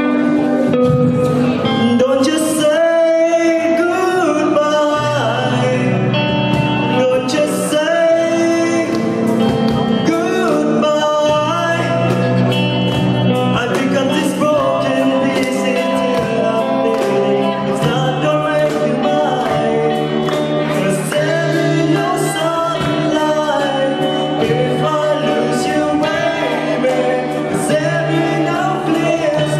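A voice singing a melody over instrumental accompaniment, with sustained notes underneath.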